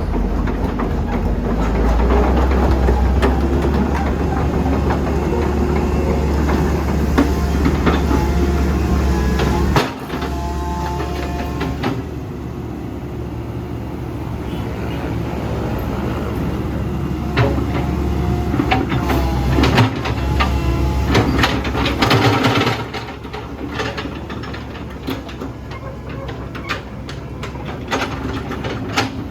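Komatsu PC128US-8 excavator's diesel engine running while the machine is operated, with clanks, knocks and brief squeaks from the working machine. The engine drops back about ten seconds in and again a little past twenty seconds.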